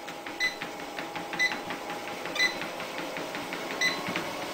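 Treadmill running at walking pace: a steady motor whine with a short ringing click about once a second as the belt goes round, and fainter ticks between. A higher steady whine joins near the end.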